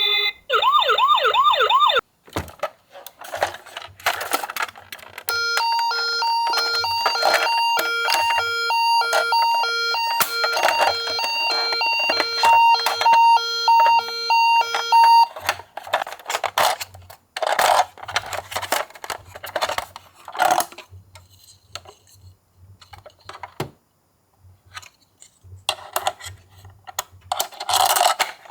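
Toy ambulance's electronic siren: a fast warbling wail for about two seconds, then a two-tone hi-lo siren alternating between a high and a low beep for about ten seconds. The rest is scattered clicks and knocks of the plastic toy being handled, and the two-tone siren starts again at the very end.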